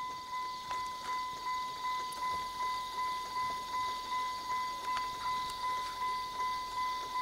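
A truck's warning chime dinging steadily, one bright tone repeating about two and a half times a second.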